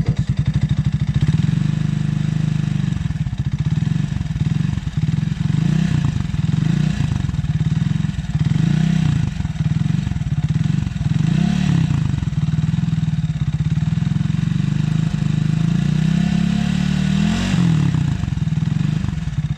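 Italika 250Z motorcycle engine and exhaust being revved in place, the throttle blipped over and over so the pitch rises and falls again and again, settling back to idle near the end.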